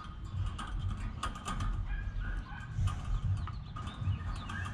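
Pliers twisting a tie wire around a chain-link fence's top rail and mesh: a quick run of small metallic clicks and scrapes.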